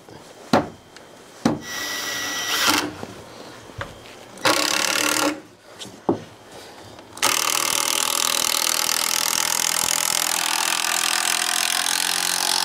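A few knocks and short bursts of work noise, then from about seven seconds in a cordless drill runs steadily for about five seconds, driving a 3-inch screw through the bench side into the wooden support cleat, and stops at the end.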